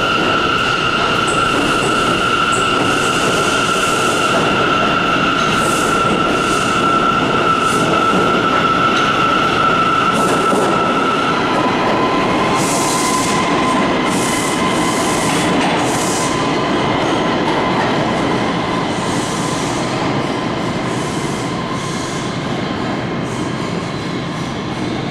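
An R179 subway train running through an underground station: wheels rumbling on the rails under a steady high-pitched whine, with repeated clicks of the wheels over rail joints. The whine drops in pitch about halfway through, and the train grows fainter near the end as it pulls away into the tunnel.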